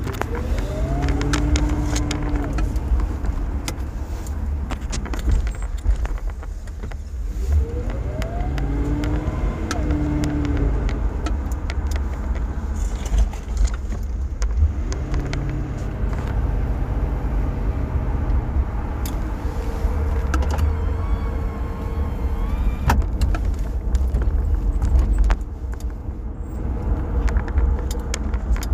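Car engine and road rumble heard from inside the cabin as the car pulls away and accelerates. The engine pitch climbs three times, several seconds apart, under small rattles and clicks like jangling keys.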